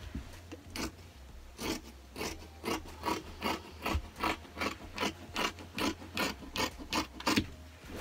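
Scissors snipping through two layers of shirt fabric, a steady run of cuts about two and a half a second that starts about a second in and stops near the end.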